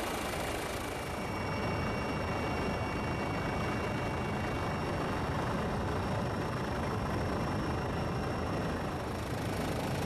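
Helicopter turbine and rotor noise heard from inside the cabin: a steady rushing drone with a few faint, steady high whines. The tone shifts slightly about a second in and again near the end.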